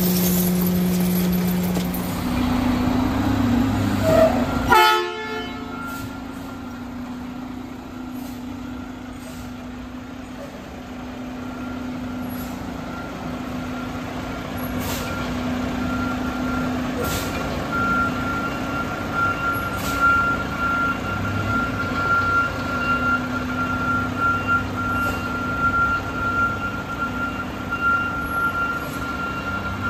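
Mack rear-loader garbage truck's diesel engine running, first at the hopper with a steady hum that ends in a sharp knock about five seconds in, then as the truck reverses. A high steady warning tone, the reversing alarm, sounds over the engine through the second half.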